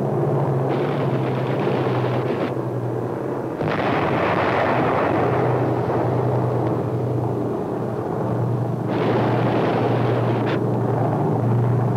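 Combat sound effects: a steady aircraft engine drone under rapid gunfire and explosions, with a heavier blast about four seconds in.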